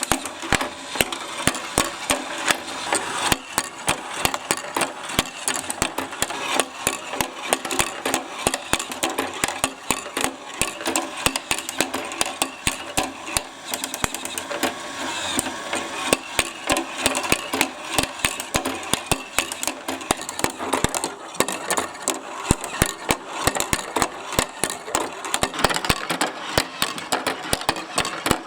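Lots of marbles rolling and clattering along plastic marble-run tracks: a dense, unbroken patter of clicks and clacks.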